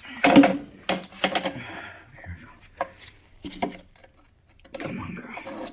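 Metal clinks and knocks as a rusty pin is worked out of a fifth wheel, with a longer scraping near the end.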